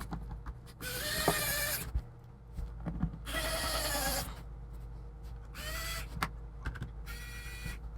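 Plastic laptop case and hinge creaking and squeaking in about four short bursts as the Chromebook is handled and pressed together, with a few small clicks.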